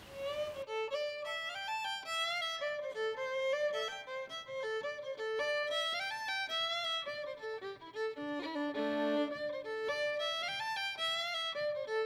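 Background music: a fiddle playing a fast tune with quick runs of notes.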